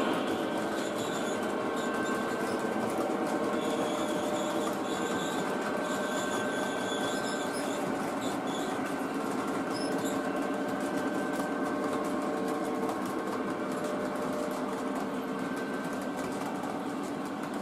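O gauge three-rail model freight train of covered hopper cars rolling past: a steady clatter of wheels on the track with fast fine clicking, growing slightly fainter toward the end.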